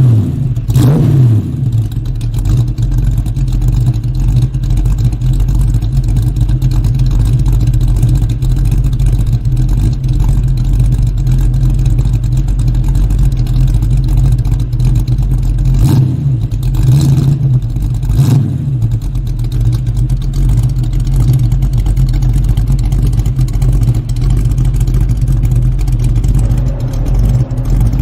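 Ford Mustang engine running steadily under way. Its pitch rises and falls briefly about a second in, and again a few times about two-thirds of the way through.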